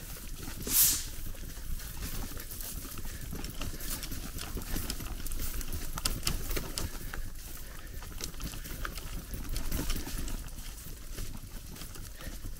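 Grasshoppers stridulating, hind legs rubbing to make scattered dry chip-chip ticks, over a low rumble. A brief loud hiss comes about a second in.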